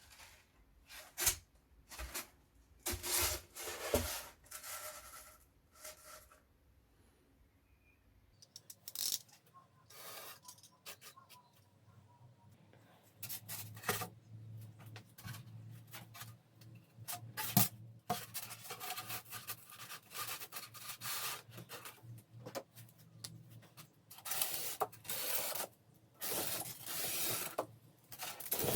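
Irregular rubbing and scraping strokes of craft materials being worked by hand, in short bursts with pauses between them.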